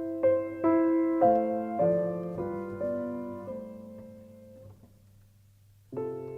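Solo piano playing a slow phrase of single notes over a low held note, fading away about four and a half seconds in; after a short pause a new chord is struck near the end.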